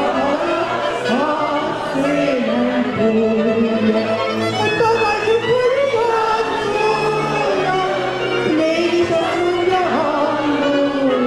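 A woman singing a Hungarian nóta into a microphone, with vibrato on held notes, accompanied by a Gypsy band of violins, cimbalom and double bass.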